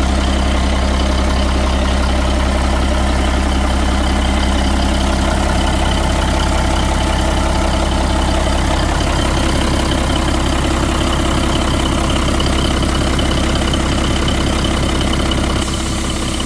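Diesel engine of a 1979 Peterbilt semi truck running with a steady low drone, its pitch unchanging.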